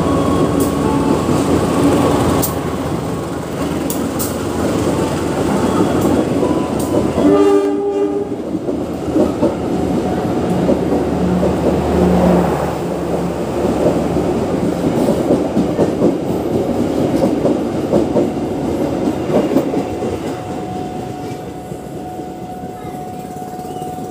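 Diesel locomotive hauling a passenger train straight through at speed without stopping: engine rumble and steel wheels clattering over the rails, with a short horn blast about seven seconds in. The noise of the passing coaches dies down near the end.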